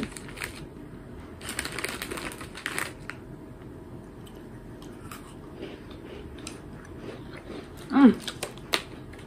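A crinkly biscuit packet being handled in two bursts in the first three seconds, then faint crunching and chewing of Bakers Eet-Sum-Mor shortbread biscuits.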